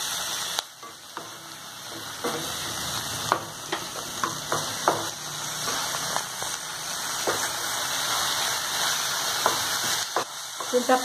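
Chennangi (coffee senna) leaves and tamarind frying in oil in a non-stick pan: a steady sizzle that dips briefly just under a second in, with scattered sharp ticks as a wooden spatula stirs them.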